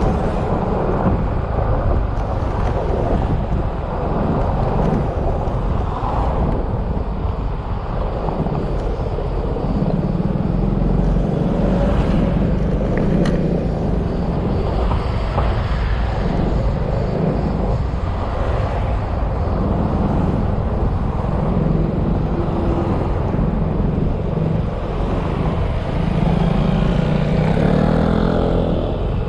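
Yamaha XMAX maxi-scooter being ridden on the road: steady engine hum with wind and road noise, the engine note rising and falling with the throttle and climbing near the end as it accelerates.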